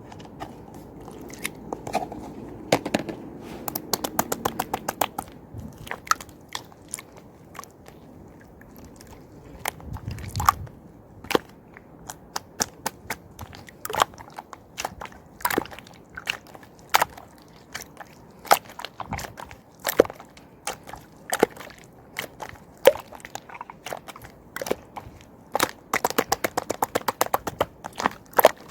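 Clear slime being worked by hand, giving a string of sharp pops and clicks, some in quick runs and others spaced out.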